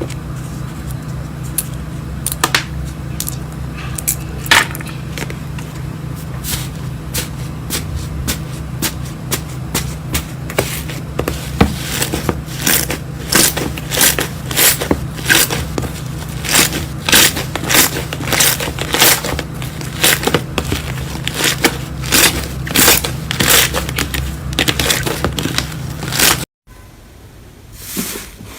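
Slime being squeezed and stretched by hand, crackling with sharp pops that come faster and louder as it goes on, over a steady low hum. The sound cuts off abruptly near the end.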